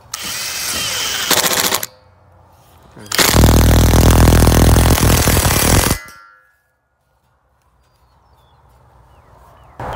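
Power impact driver driving a long screw with a washer through steel strut channel into a timber beam: a short run, then after a pause a longer, louder run of rapid hammering as the screw is driven home, cutting off suddenly.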